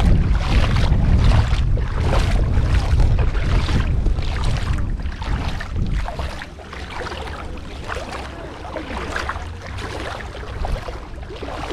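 Bare feet wading through shallow sea water, each step a splash at a steady walking pace, with wind buffeting the microphone, heavier in the first half.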